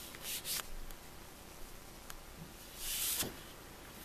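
Sheets of scrapbook paper sliding and rustling as they are handled, in two short swishes: a small one about half a second in and a longer one about three seconds in.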